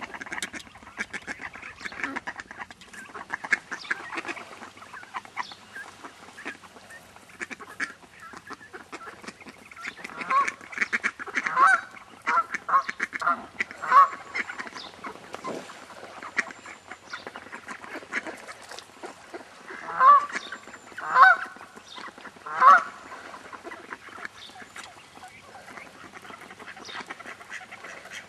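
A group of mallard ducks calling over a continuous soft chatter of short sounds. Loud, honking quacks come in a run about a third of the way in, then three more separate ones after about two-thirds.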